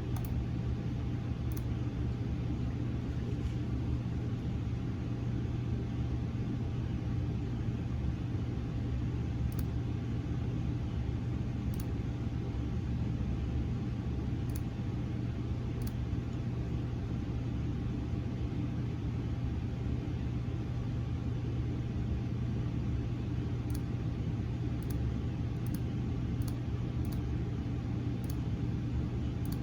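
Steady low hum and rumble of MRI scanner equipment, with a constant low tone and a few faint high ticks. There is no pulsing scan rhythm, so the scanner is idling rather than running a sequence.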